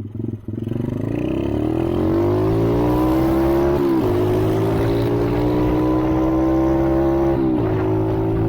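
ATV engine accelerating hard. Its pitch climbs over the first two seconds, then holds high and steady, dipping briefly twice: about four seconds in and again near the end.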